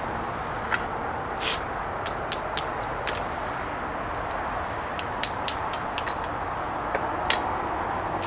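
Tongs and mold halves clicking and knocking against each other and a steel stand as a gravity mold is opened after a silver pour. About fifteen light taps come in two clusters over a steady rushing background.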